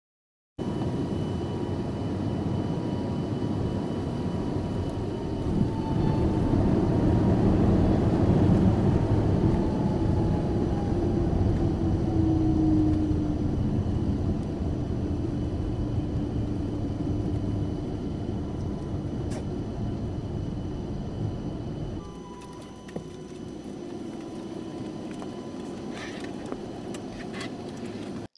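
Jet airliner's engines and rolling rumble heard from inside the passenger cabin as the plane moves along the runway. A loud, dense rumble carries a whine that slides down in pitch. The noise drops to a quieter level about 22 seconds in.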